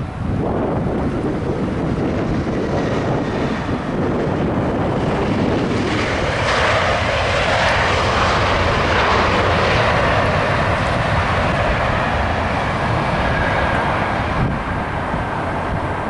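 Airbus A319's twin IAE V2500 turbofan engines roaring as the airliner rolls out after touchdown; the roar swells about six seconds in and holds. Wind rumbles on the microphone throughout.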